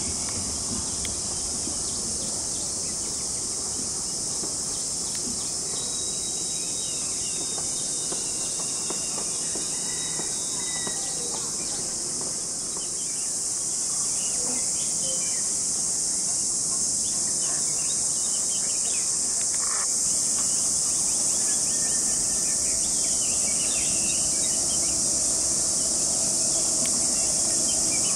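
Steady, high-pitched drone of an insect chorus, with a few faint bird chirps.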